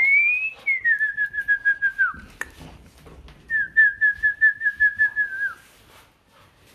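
A person whistling to call a puppy: a short rising whistle, then two long warbling whistles held at one high pitch, each dropping away at the end. A single click falls between the two long whistles.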